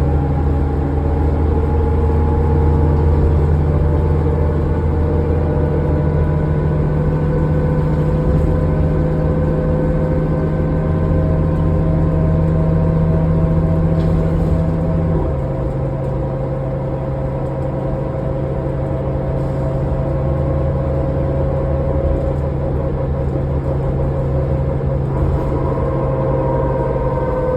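Cabin sound of a 2005 New Flyer D40LF diesel transit bus under way: a steady low engine drone with a howling whine above it that glides slowly in pitch. About halfway through, the engine note drops and softens.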